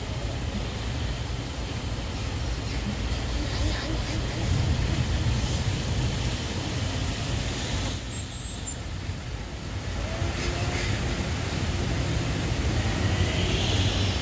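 Tank truck's engine running under load on a steep uphill hairpin, a steady low drone.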